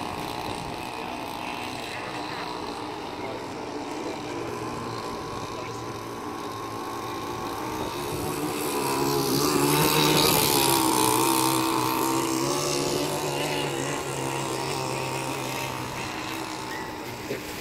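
Radio-controlled model powerboat's motor running at speed across the water. It grows louder as the boat passes close about halfway through, its pitch dropping as it goes by, then fades as the boat runs off.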